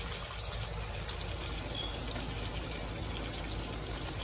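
Beef stew simmering in its sauce in a pot, a steady wet bubbling.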